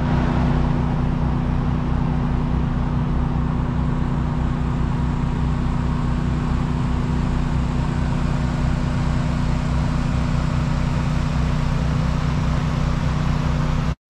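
Steady rush of a swollen river over rapids, with a steady low hum running beneath it.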